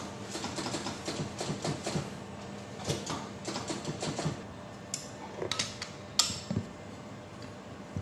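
Rubber air-spring bellow being worked by hand against the crimping machine's plastic fixture: a run of irregular creaks, rubs and light clicks, then a few sharper clicks around the sixth second.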